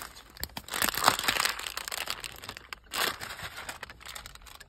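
Plastic snack packaging crinkling and crackling in irregular bursts as it is handled, loudest about a second in and again near three seconds.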